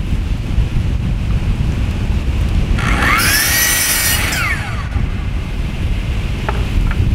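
Power saw spinning up, cutting through a 2x4 for about two seconds and winding down, its whine rising then falling, about three seconds in. Wind rumbles on the microphone throughout.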